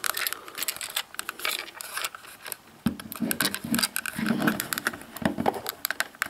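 Clicks, scrapes and rattles of hands working the plastic handle of a Boots Comet 121 Super 8 camera at its battery chamber. A quick run of small clicks, with duller knocks in the second half.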